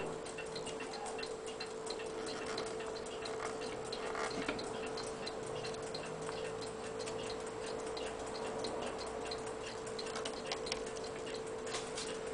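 Many faint, irregular ticks and clicks over a steady hum.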